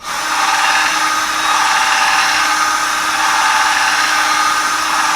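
Electric drill starting abruptly and running steadily at one pitch while boring out holes to enlarge them.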